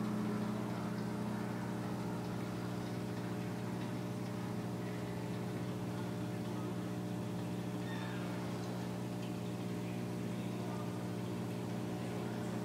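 Reef aquarium pump humming steadily, a low electric buzz that holds unchanged.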